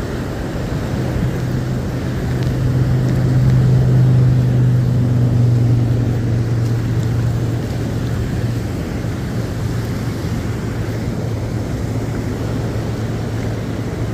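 Rushing water of a high river churning white through a current seam, a steady hiss. A low steady hum swells a couple of seconds in, is loudest about four seconds in, and fades back by about the middle.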